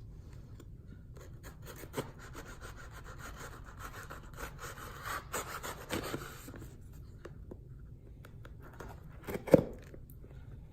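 Hands handling the next mailed package on a table: rubbing and rustling with scattered light clicks, and a sharper knock about nine and a half seconds in.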